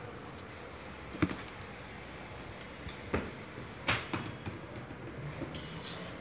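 A small dog playing with a rubber bone toy on a tiled floor: a few sharp knocks and clicks, the loudest about one, three and four seconds in.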